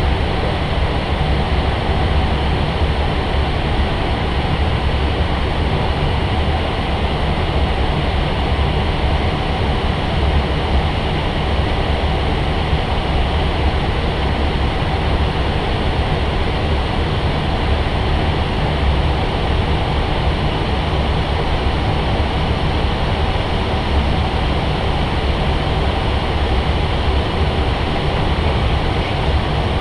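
Steady cabin noise in an Airbus A320 cockpit in flight: an even rush of airflow and ventilation over a deep low hum, unchanging throughout.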